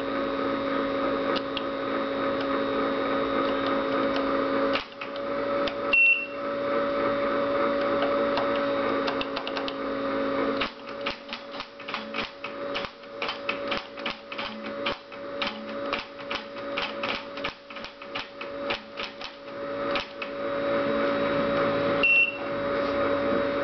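Tracor AN/UGC-129 airborne teletype running with a steady hum from its cooling fan, while its keyboard is typed on in quick runs of clicking keystrokes through the middle. A short high beep sounds twice, about six seconds in and again near the end.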